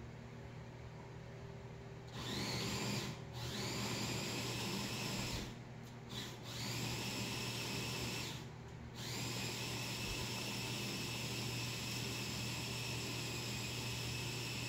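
High-pitched whine of an electric power tool, like a drill spinning up. It starts about two seconds in with a rising pitch, cuts out a few times and spins up again each time, then runs steadily. A low steady hum lies underneath.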